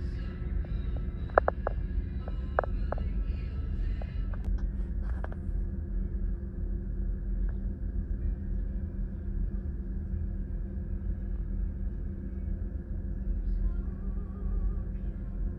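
Steady low rumble and hum of a cruise ferry's engines heard aboard the ship. Faint background music and a few short clicks sound over it in the first few seconds.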